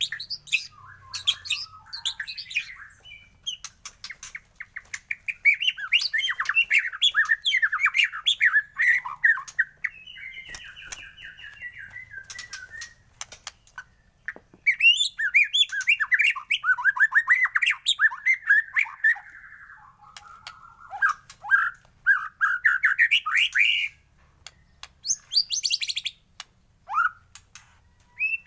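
White-rumped shama (murai batu) singing long, fast-warbling phrases mixed with harsh chattering notes, in two long runs with short pauses between.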